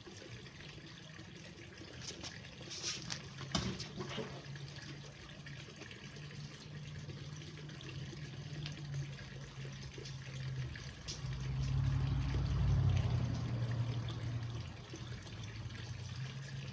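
A thrown spear hits its target with a sharp knock about three and a half seconds in, over a steady low hum. A louder low rumble swells in around twelve seconds in and fades a couple of seconds later.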